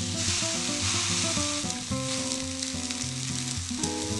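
Raw stuffed pljeskavica (minced-meat patties) sizzling as they are laid onto a hot ribbed grill plate. Background music plays under the sizzle.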